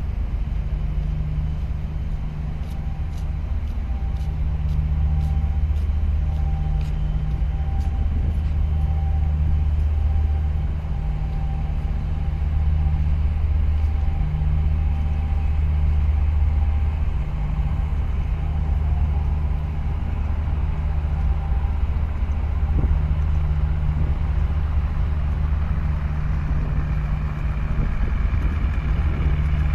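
Deep, steady low drone of an ultra-large container ship's engines as the ship passes close alongside. A higher engine note from a harbour tug joins near the end.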